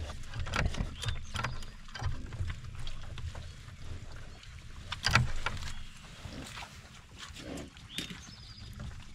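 Two Gloucestershire Old Spot gilts rooting and eating in wet mud and feed at close range: snuffling, chewing and short low grunts in an irregular run of noises, with a louder one about five seconds in.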